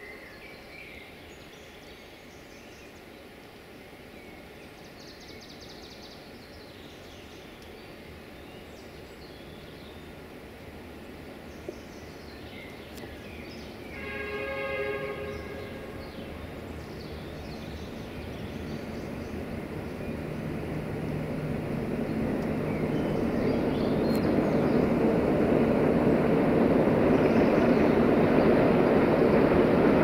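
Air horn of an approaching freight train hauled by two Romanian 060-DA (LDE2100) Sulzer diesel locomotives: the tail of one blast at the start, then a second blast of several tones at once, lasting about a second and a half, about halfway through. After it the rumble of the locomotives and train grows steadily louder as it comes closer.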